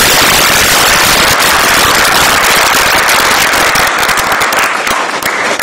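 Audience applauding: a loud, dense patter of hand claps that thins out into fewer, separate claps near the end.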